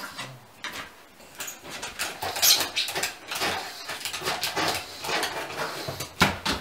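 Toilet paper being torn and pulled off the roll by a pug, rustling and ripping in quick irregular bursts.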